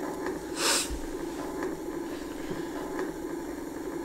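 Opening of a rap track being played back: a steady low hum like a car's cabin with the engine idling, with a short burst of hiss just under a second in.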